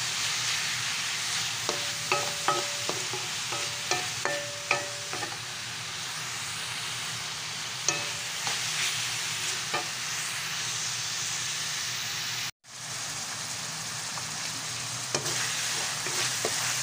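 Ground pork and tomato sizzling steadily in a hot metal pan while a spatula stirs and scrapes, with a run of sharp scraping clinks against the pan in the first few seconds and a few more later. The sound drops out for an instant about twelve seconds in.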